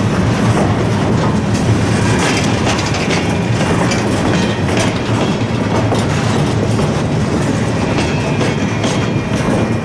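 Loaded freight flatcars rolling past close by: a steady rumble of steel wheels on rail, with the clickety-clack of wheels passing over rail joints.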